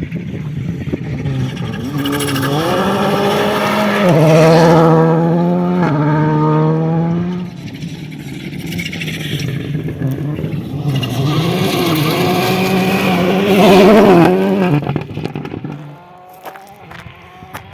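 Volkswagen Polo GTI R5 rally car's turbocharged four-cylinder engine running hard on gravel, its revs climbing and falling with gear changes and lifts. It is loudest twice, then drops off sharply near the end.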